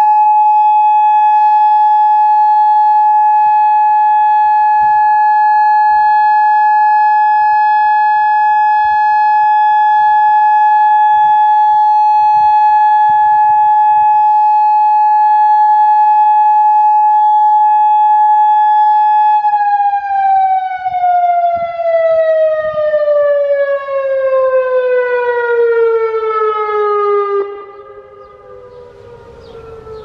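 Federal Signal Modulator 4016B electronic outdoor warning siren sounding its steady Alert tone in a short test. The loud, held tone lasts about twenty seconds, then slides down in pitch for several seconds and cuts off a couple of seconds before the end.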